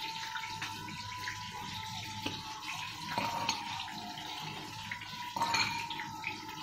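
Shredded green mango being tossed in its fish-sauce dressing in a ceramic bowl, with scattered light clicks of metal tongs against the bowl, over a steady hiss and a faint steady high tone. The busiest clatter comes about five seconds in.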